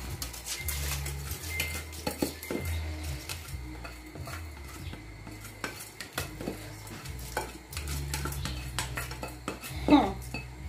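Plastic spatula scraping rice out of a glass bowl into a cooking pot, with many small clicks and knocks of spatula on glass. A low steady hum runs underneath.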